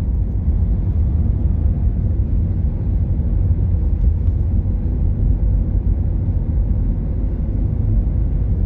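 Steady low rumble of a car's engine and tyres on tarmac while driving, heard from inside the cabin.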